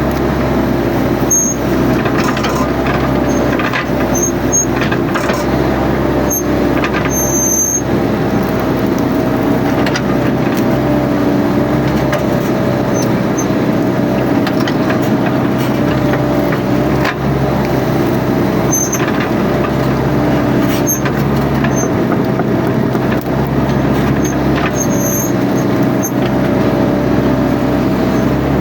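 Mini excavator's engine running steadily under working load, with scattered clicks and knocks and a few brief high squeaks.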